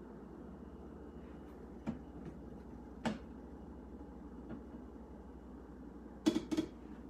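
Two sharp plastic clacks about six seconds in, as the food pusher is pulled out of a Breville juicer's feed chute, after two fainter knocks earlier, over a low steady hum.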